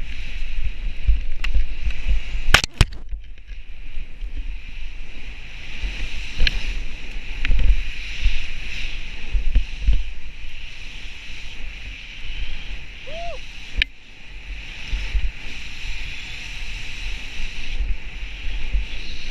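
Skis hissing through deep powder snow, with wind rushing over the microphone and a low rumble, broken by a few sharp clicks, the loudest about two and a half seconds in.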